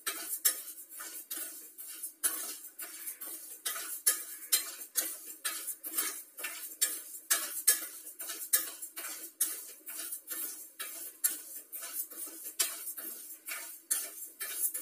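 Steel spoon scraping and clinking against an aluminium kadai while dry rice and moong dal are stirred during dry-roasting. A quick, uneven run of scrapes and taps, about three a second, over a faint steady hum.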